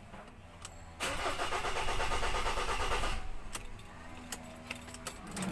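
Ford Ranger 2.2 diesel's starter cranking the engine for about two seconds without it starting, then cranking again near the end. The slow start is a hard start that the mechanic puts down to a faulty camshaft position sensor.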